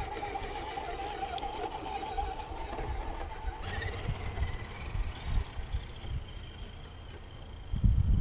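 Axial SCX10 radio-controlled crawler's electric motor and gears whining, the pitch wavering with the throttle, then gliding up to a higher, steadier whine a few seconds in. Wind rumbles on the microphone, with a low thump near the end.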